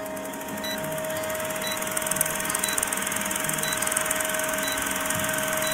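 Film-projector whirring and clattering, the sound of an old film-leader countdown, with a short faint blip about once a second as the numbers count down.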